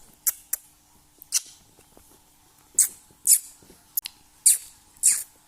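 Conure parrot making kissing sounds: a run of about eight short, sharp smacks at uneven intervals, several sliding down in pitch, the ones in the second half louder.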